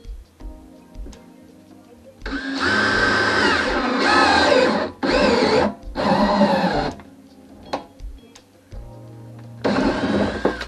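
Cordless DeWalt drill with a step drill bit boring a hole through the plastic wall of a water tank. The motor whine rises and falls in pitch under load. It runs for nearly three seconds starting about two seconds in, stops briefly, runs again for about two seconds, then runs once more briefly near the end. Background music with a steady beat plays underneath.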